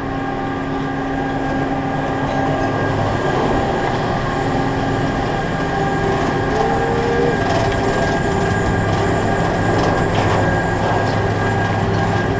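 Chairlift terminal machinery running: a steady mechanical hum made of several held tones over a noisy rumble, growing slightly louder, with a short rising whine about halfway through.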